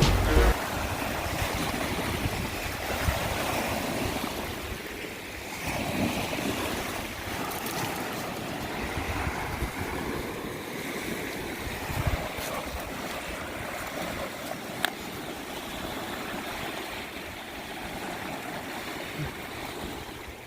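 Wind-driven lake waves washing onto the shore in strong wind: a steady rushing that swells and eases, with a few faint clicks.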